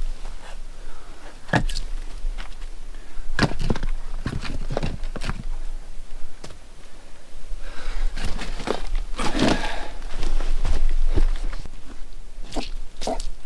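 Footsteps with scattered irregular knocks, and a louder scraping rustle about eight seconds in.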